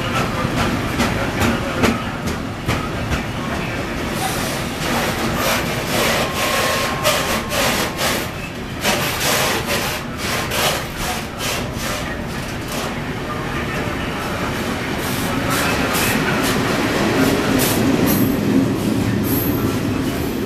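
Freight train of tank wagons running through the station without stopping, wheels clattering over the rail joints with a constant rumble of wagons rolling past.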